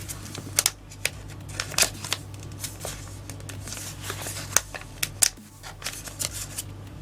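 Yu-Gi-Oh trading cards being handled and sorted by hand, with irregular sharp clicks and snaps of card stock.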